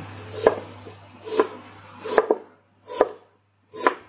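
Kitchen knife slicing a shallot into rings, each stroke cutting through and tapping the plastic cutting board: five even cuts, about one every 0.8 s.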